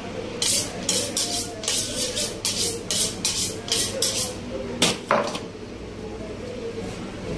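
Butcher's knife being honed on a sharpening steel: a quick run of about a dozen metallic scraping strokes, roughly three a second, then two separate sharper strokes about five seconds in.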